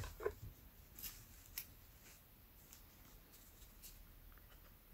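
Light plastic clicks and taps as the opened body of a spinning reel and an oil bottle's nozzle are handled while oiling it: a few sharp clicks in the first two seconds, then fainter ticks.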